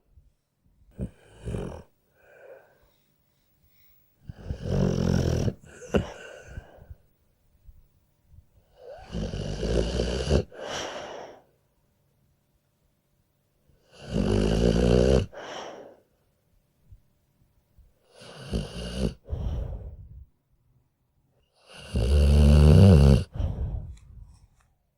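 A sleeping dog snoring in slow, even breaths: a long snore about every four to five seconds, each followed by a shorter, softer one.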